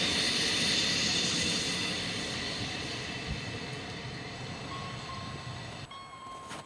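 SA135 diesel multiple unit running past and away over the rails, its engine and wheel noise with a steady high whine slowly fading. It cuts off abruptly about six seconds in, leaving quieter outdoor sound.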